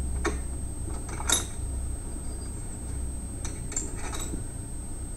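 Steel nuts and washers clinking against a steel bracket plate as they are fitted by hand onto U-bolt studs: a few light metallic clinks, the sharpest about a second in and a small cluster near the end, over a steady low hum.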